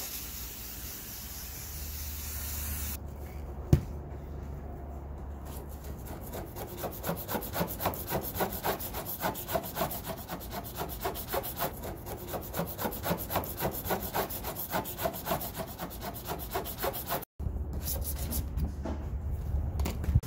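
Razor scraper scraping old adhesive off a plywood panel in quick repeated strokes, about two a second.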